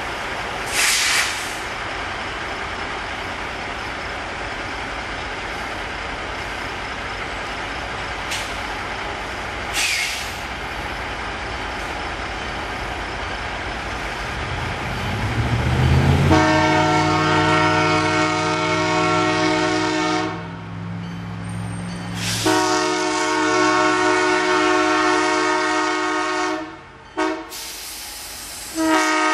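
Road traffic with trucks passing. About halfway through, a diesel locomotive's air horn sounds the grade-crossing pattern: two long blasts, a short one, and a long one starting at the very end.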